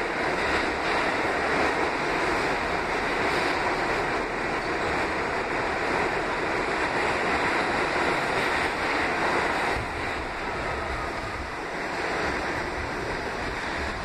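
R68A subway car running at speed, heard from inside the car: a steady noise of wheels on track, a little quieter from about ten seconds in.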